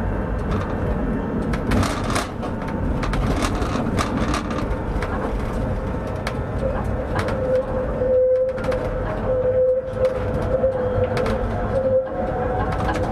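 Tram running along the track, heard from the driver's cab: steady rolling noise with scattered clicks of the wheels over rail joints. A steady whine comes in around the middle, and a second whine rises gently in pitch near the end.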